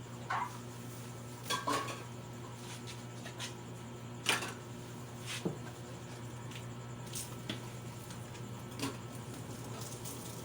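Dishes and cutlery clinking and knocking now and then, about six separate clatters, over a steady low hum.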